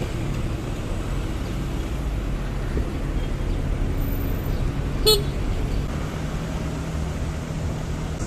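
Motorcycle engine running steadily while riding in city traffic, with a short vehicle horn beep about five seconds in.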